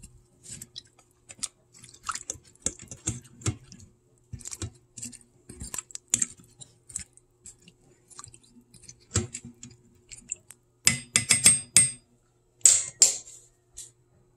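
A metal fork clinking and scraping against a stainless steel Instant Pot inner pot as vegetables are pushed down into the water: a run of irregular clicks and knocks, with a louder burst of sharp metallic clinks about eleven to thirteen seconds in.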